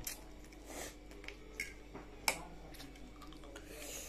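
Noodles being slurped and chewed, with several sharp clicks of metal forks against plates, the loudest a little past two seconds in.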